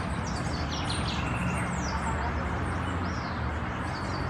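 Small birds chirping: many short, high notes that fall in pitch, coming thick and fast, over a steady low hum.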